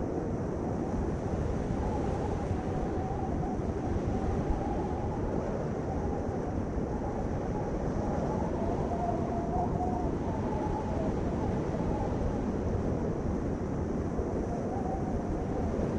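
Steady low rumble of a vehicle on the move, road and engine noise with a faint wavering hum.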